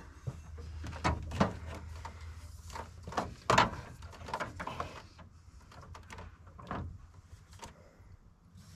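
Irregular light knocks and clatter of a rubber hose being handled and pushed down among the engine's fuel injection pump parts, with a faint low hum that fades out about halfway through.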